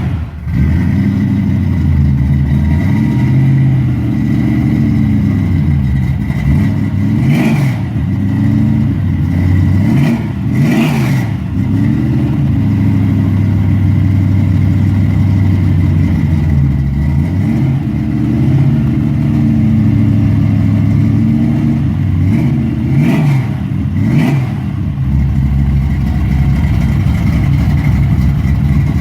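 Car engine running and being revved several times, its pitch rising and falling, then settling to a steady idle near the end.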